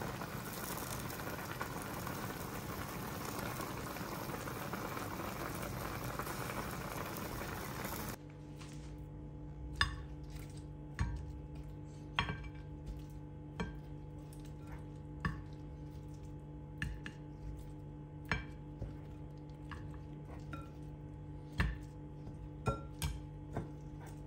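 Chicken tinola broth boiling hard in a pan, a steady bubbling hiss. After about eight seconds it cuts to a low steady hum, with a dozen soft knocks about a second or so apart as raw chicken thighs are set down one at a time on a ceramic plate.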